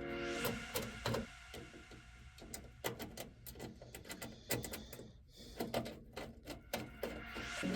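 Irregular light clicks, taps and small rattles of hands working screws with a screwdriver into a PC case and motherboard.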